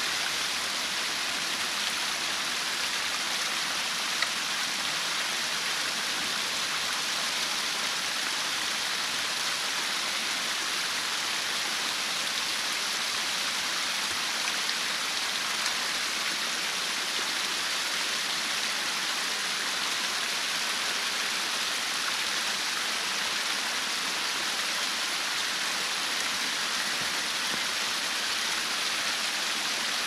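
Water rushing steadily through a field drainage ditch, a culvert pipe running at full capacity after a beaver-dam clog has been pulled from it.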